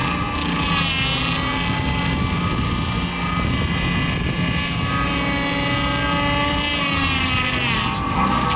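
A heavy machine's engine running steadily, with a higher whine that glides in pitch about a second in and again near the end.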